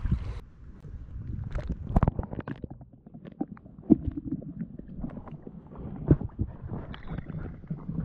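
Water splashing and sloshing as a hand moves through shallow water, with irregular sharp knocks and splashes over a low rumble.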